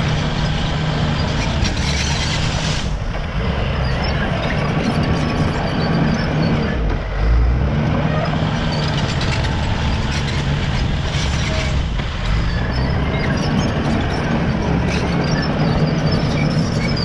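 Caterpillar D5 bulldozer's diesel engine running steadily under load, with scattered clanks, its note dipping briefly about seven seconds in and again near twelve seconds.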